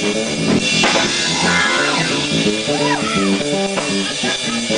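Live jazz band playing: drum kit, a moving bass line and chords, with a higher lead line whose notes slide up and down in pitch.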